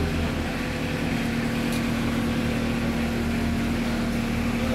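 A steady mechanical hum holding one pitch, over a low drone.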